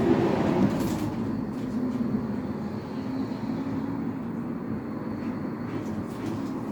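Steady low rumbling background noise that starts abruptly, with a few faint clicks.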